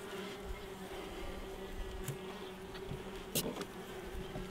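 Honeybees buzzing in a steady hum over an open hive, with a couple of sharp clicks as the wooden frames are handled, a faint one about two seconds in and a louder one near the end.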